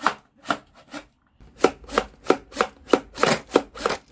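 Toy water gun, used as an air blower, puffing air in quick repeated pumps at about three a second, with a brief pause about a second in.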